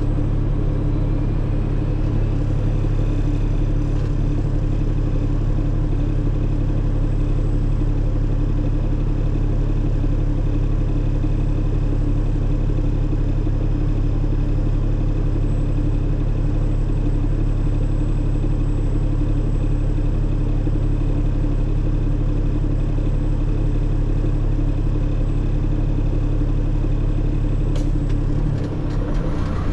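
Tanker truck's diesel engine and road noise heard from inside the cab while driving: a steady low drone, which shifts and dips briefly near the end.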